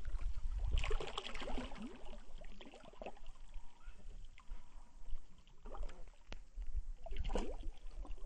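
A large hooked fish thrashing in shallow water, splashing and churning the surface in irregular bursts, the strongest about a second in and again near the end.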